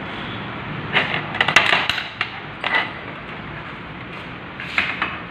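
Sharp metallic clicks and clinks of a Bosch common-rail diesel injector and its small parts being handled, in a cluster between one and two seconds in, once more near three seconds, and again near the end, over a steady background hiss.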